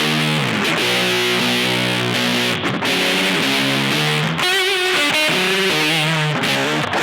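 Electric guitar played through an EarthQuaker Devices fuzz pedal, freestyle riffing with held, distorted chords and notes. A little past halfway a note wavers up and down in pitch, like a bend with vibrato.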